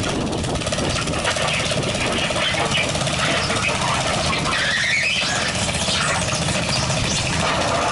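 Modified lawn tractor engine running hard under load as it pulls the weight sled. A rising high squeal comes in about five seconds in.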